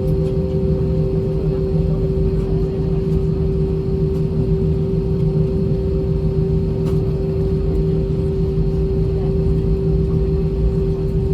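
Cabin noise of an Airbus A320 taxiing, its IAE V2500 engines at idle: a steady rumble with a steady low hum over it.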